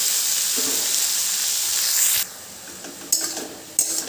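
Chopped leafy greens sizzling in hot oil in an aluminium wok, the sizzle dropping off sharply about two seconds in. Then a metal spatula scrapes and knocks against the pan twice as the greens are stirred.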